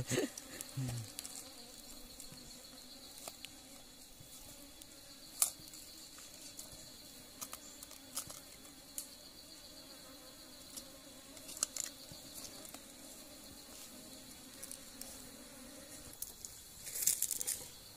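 Steady, high-pitched drone of forest insects, with scattered sharp knocks and a short cluster of louder clicks near the end.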